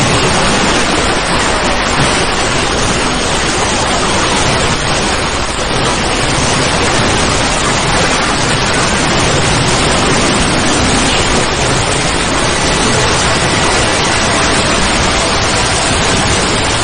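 Loud, steady static-like noise, an even hiss with no clear tone or rhythm.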